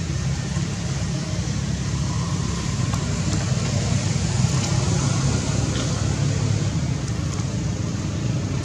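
Steady outdoor background noise: a constant low rumble with an even hiss above it and a few faint ticks.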